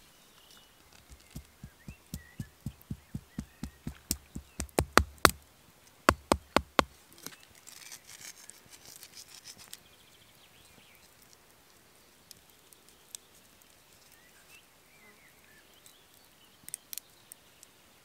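A run of sharp knocks, about three a second, speeding up and growing louder, then a brief pause and a few more knocks.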